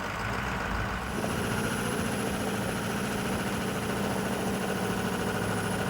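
A motor running steadily with a low hum, joined about a second in by a thin, high, steady whine.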